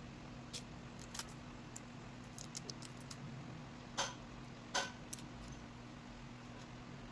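Light clicks and taps of small tools and phone parts being handled during a phone screen repair, with two sharper clicks about four and five seconds in, over a steady low hum.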